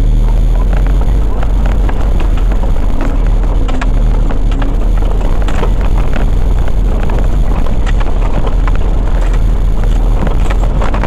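Four-wheel-drive vehicle driving slowly over a rough, rocky dirt track: a steady low engine and road rumble with frequent knocks and rattles from the bumps.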